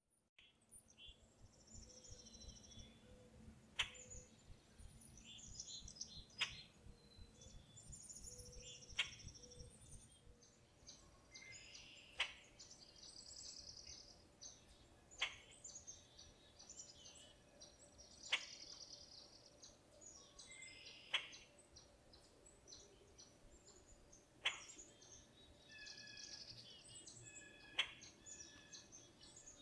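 Faint birds chirping and twittering, with a sharp click about every three seconds standing out above them.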